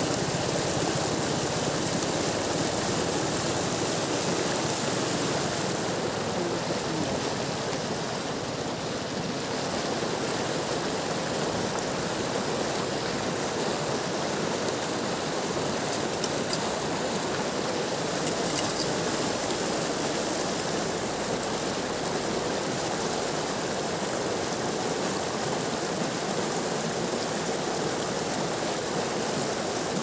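River water rushing and churning white over rocks at the bank: a steady, unbroken rush.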